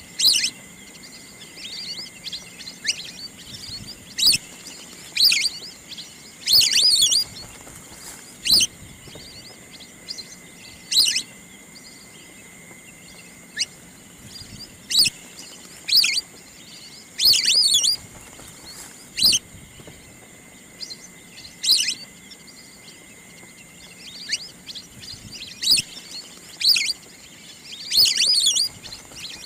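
Wild duck calls: short, sharp, high-pitched calls repeated irregularly every one to three seconds, some in quick runs of several, over a faint steady high tone.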